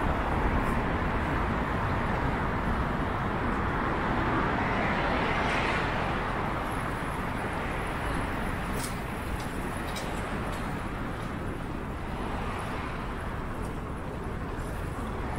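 Steady rushing noise of a bicycle ride: wind and tyre noise mixed with traffic hum. It swells and fades again about five seconds in, with a few light clicks later.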